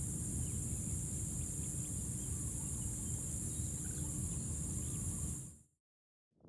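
Rice-field ambience: a steady high insect trill over a low rumble, with a few faint bird chirps. It cuts off about five and a half seconds in.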